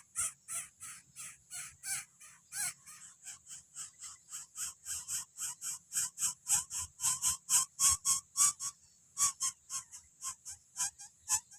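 Coucal nestling giving rapid, raspy begging calls, about four a second in an even series.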